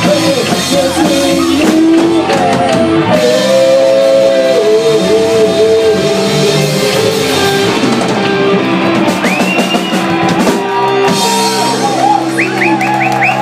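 Live rock band playing: electric guitars, bass guitar and drum kit, with a melodic lead line bending over the top.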